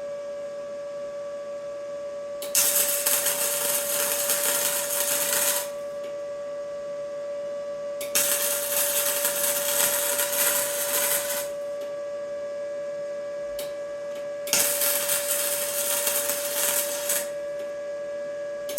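Electric arc welding on thick steel pipe: three runs of sizzling, crackling arc of about three seconds each, with pauses between, over a steady hum.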